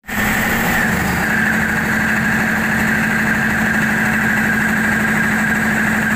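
Caterpillar 3508 V8 diesel generator engine running steadily at constant speed after a fuel calibration, with a steady high whine above the engine note.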